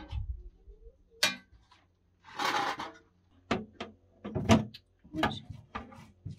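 A metal spoon scraping and knocking against a large square metal tin while scooping out solid ghee. There is a longer scrape a couple of seconds in, then several sharp clinks about a second apart, the loudest about four and a half seconds in.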